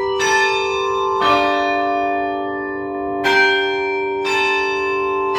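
Tower bells chiming a tune close up inside the belfry: four strikes on bells of different pitch, about a second apart with a two-second gap in the middle, each note ringing on and overlapping the next.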